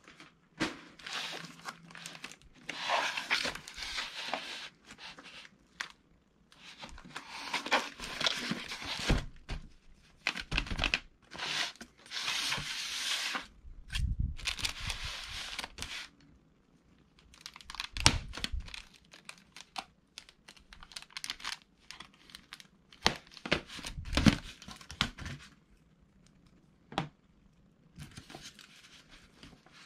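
Packaging being opened by hand: bursts of crinkling and tearing wrapping, with a few sharp knocks as the box and its contents are handled.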